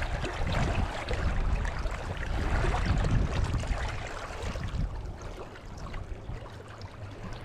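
Wind buffeting the microphone in irregular gusts, a low rumble with a rushing hiss above it, easing off about four seconds in.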